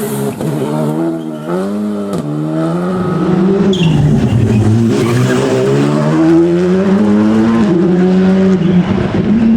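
Rally car engine revved hard, its pitch repeatedly climbing and dropping through gear changes and lifts, and getting louder about three seconds in as the car comes closer.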